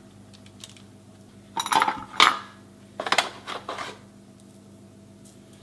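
Metal spoon clinking and scraping in two short rattling spells as sugar is spooned from a bag over a tray of unbaked scones.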